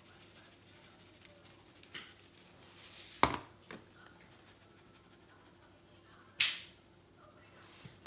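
Spice shaker containers being handled while seasoning meat: a short shaking hiss and a few sharp knocks and clicks as the containers are shaken and set down, the loudest about three seconds in and another about six and a half seconds in.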